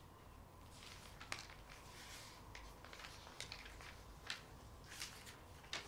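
Pages of a book on a wooden book stand being turned by hand: a series of faint, short papery rustles and flicks.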